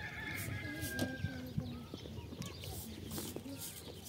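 Farm animals and birds calling, with a high drawn-out call in the first second or so. A few soft swishing strokes come in the second half.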